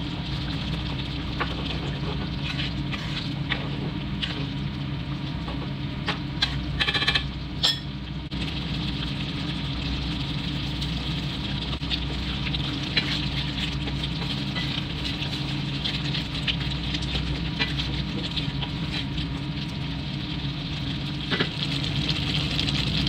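Creamy paprika chicken sauce simmering and bubbling in a nonstick pan, stirred with a wooden spatula, with scattered taps and scrapes against the pan and a steady low hum underneath.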